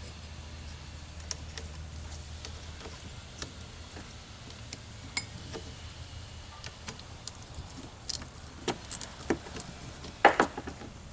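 Metal parts and hand tools clinking and tapping as they are handled, scattered light clicks with a louder cluster of knocks about ten seconds in. A low steady hum sits underneath and fades out about halfway through.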